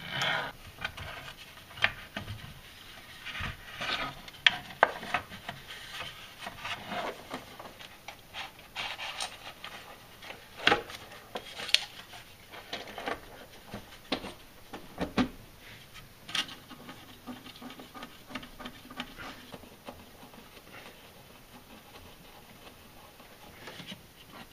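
Plastic valve cover with its rubber gasket being worked down onto the cylinder head by hand: rubbing and scraping of plastic against the engine and wiring, with scattered light clicks and knocks, the sharpest in the middle stretch.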